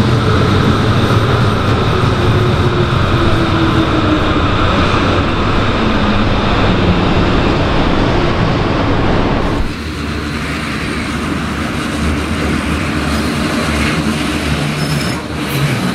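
A Hamburg S-Bahn electric train running past close by, a dense rumble with a faint tone falling in pitch. A little under ten seconds in, the sound cuts abruptly to a quieter Hamburg U-Bahn train approaching on a curved track, with a faint high wheel squeal near the end.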